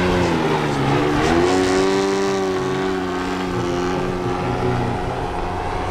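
Propeller-driven 125cc petrol engine (Hornet HE125) of a large RC Carbon Cub model plane running in flight, turning a 29-inch propeller. Its pitch dips just after the start, rises about a second and a half in, then eases down and holds steady.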